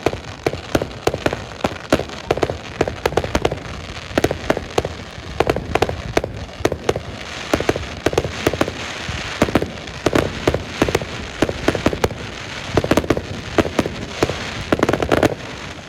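Aerial fireworks bursting in quick succession: many sharp, overlapping bangs and crackles with a hiss between them, thickest about halfway through and again near the end.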